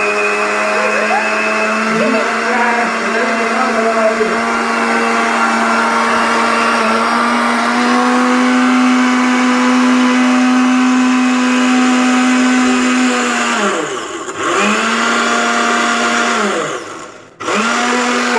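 New electric mixer grinder blending mango and sugar into aamras, its motor running at a steady whine that rises a little in pitch partway through. Near the end it is switched off and on twice, the motor winding down briefly before starting up again.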